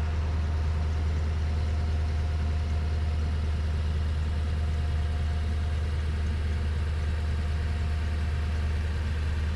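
Pickup truck engine running with a steady low hum that does not change, used to pack snow on a driveway.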